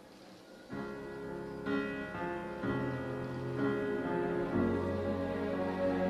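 Slow instrumental music starts suddenly about a second in, held chords that change every second or so, with a low bass coming in partway through.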